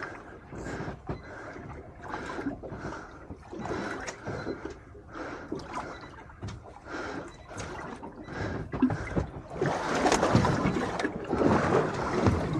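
Water slapping and sloshing against the hull of a small drifting boat in a swell, in short strokes about twice a second, with a louder rush of water from about ten seconds in.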